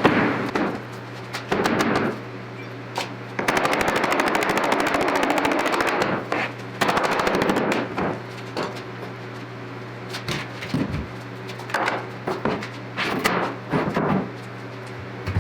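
Two bursts of rapid, machine-like rattling, each a couple of seconds long, with scattered knocks and clunks around them, as cured epoxy pieces are worked loose and knocked out of their molds.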